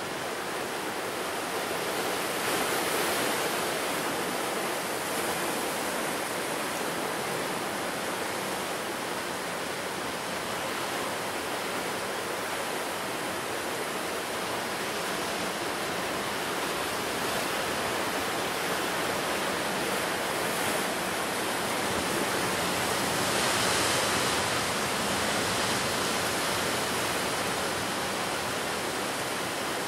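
Ocean surf washing onto the shore: a continuous rush of breaking waves that swells a little about three seconds in and again around twenty-four seconds.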